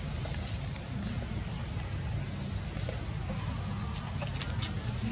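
Outdoor ambience: a steady low rumble with two or three short, high-pitched rising chirps and a few faint clicks near the end.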